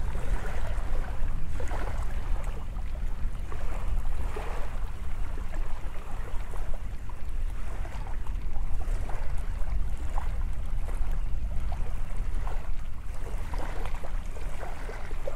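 Wind rumbling steadily on the microphone, over the faint wash of small waves in shallow water.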